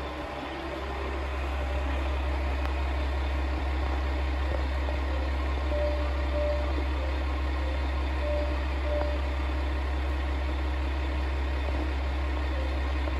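Steady low rumble of an idling diesel engine, with a few short faint tones around the middle.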